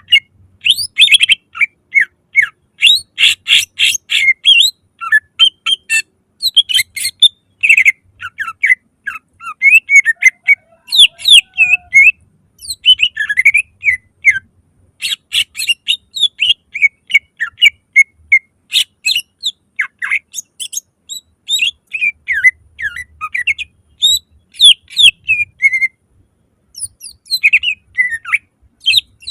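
Green leafbird (cucak ijo) singing loudly and continuously: rapid runs of sharp chirps, trills and sweeping whistled notes in quick phrases with short breaks between them. This is the full, vigorous song that keepers call "gacor", with loud bursts ("nembak").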